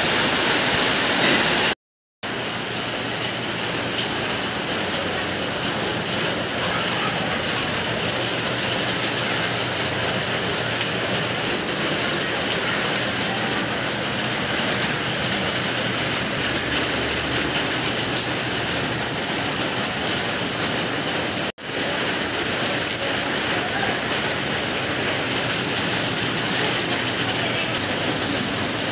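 Steady rain falling, a dense even hiss. It cuts out for a moment about two seconds in and again about two-thirds of the way through.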